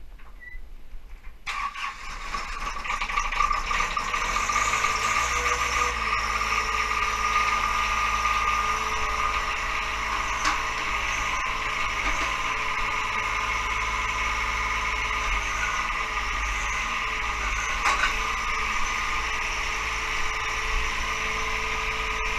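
John Deere sub-compact tractor's diesel engine running steadily while working a backhoe, with a steady high whine over it and small dips in pitch as the load changes. The sound steps up about a second and a half in and grows louder over the next two seconds.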